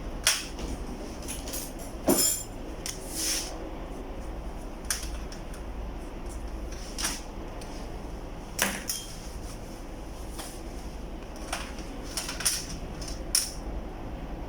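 Scattered light clicks and small knocks, one every second or two, of test leads and the LED backlight strip being handled on a workbench.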